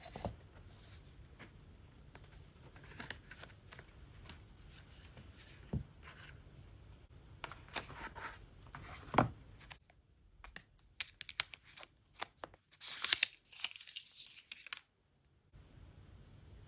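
Hands handling and opening product packaging. Scattered light taps and rustles give way to a quick run of sharp clicks, then a loud stretch of paper or plastic tearing about two thirds of the way through.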